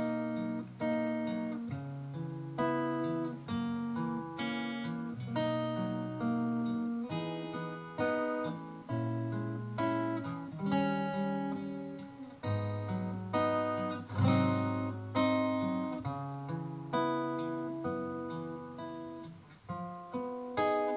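Acoustic guitar playing an instrumental passage of a song without singing: chords struck one after another, each ringing and fading before the next.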